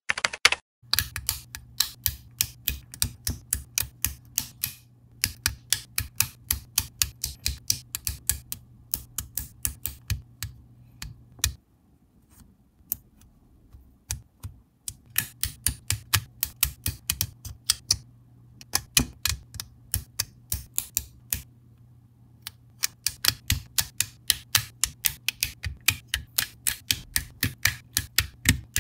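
LEGO bricks and Technic pins being pressed and snapped together by hand: a rapid run of sharp plastic clicks, several a second, over a steady low hum, thinning out twice for a few seconds.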